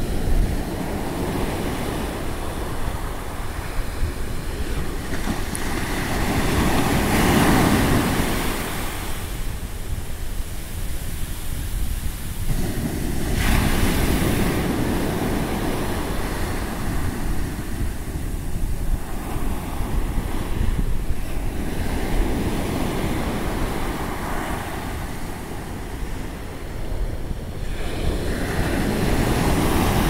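Pacific Ocean surf breaking and washing up a sandy beach, a continuous hiss that swells and fades in surges every several seconds. A low wind rumble on the microphone sits underneath.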